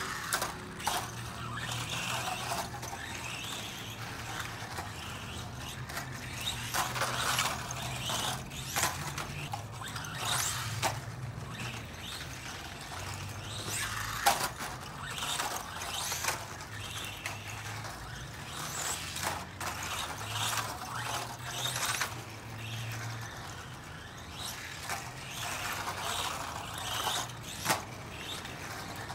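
Team Associated Reflex 14T RC truck driving on dirt, its electric motor and drivetrain whining up and down as it speeds up and slows. A few sharp knocks come as it lands jumps and hits bumps.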